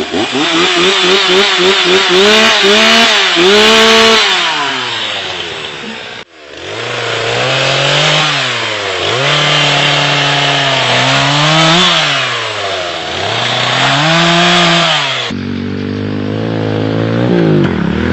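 Gas chainsaw revving up and down over and over as it cuts wood, its pitch dropping under load and rising again as it frees. The sound breaks off suddenly about six seconds in and starts again.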